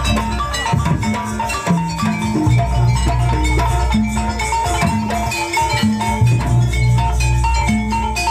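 Live East Javanese jaranan music: a gamelan-style ensemble of tuned metal percussion and drums playing a repeating pattern of short notes over deep, sustained low tones.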